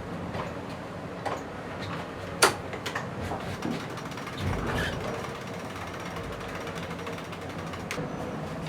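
Onboard noise of an IMOCA racing yacht under way: a steady rush with a faint low hum. Scattered sharp clicks and knocks of gear come through, the loudest about two and a half seconds in, and a brief low surge follows around the middle.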